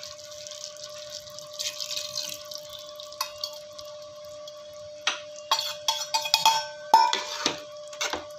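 Yogurt-and-chicken curry simmering in an aluminium pot: a soft bubbling hiss over a faint steady hum. From about five seconds in, a metal spoon scrapes and clinks against the pot as the yogurt is stirred in.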